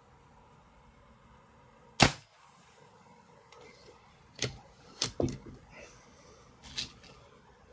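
A single sharp shot from a Reximex Throne Gen 2 4.5 mm PCP air rifle about two seconds in, followed by several lighter clicks and knocks.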